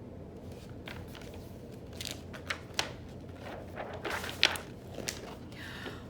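Paper rustling with a few soft knocks: the pages of a large picture book being handled and turned. Several short rustles come through, the loudest about four and a half seconds in.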